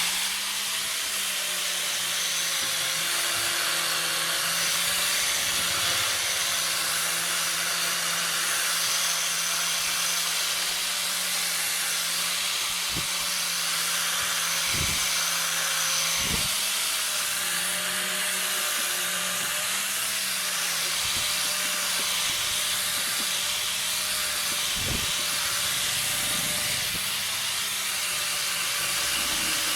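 An electric power tool running steadily, with a strong hiss over a low motor hum and a few sharp knocks.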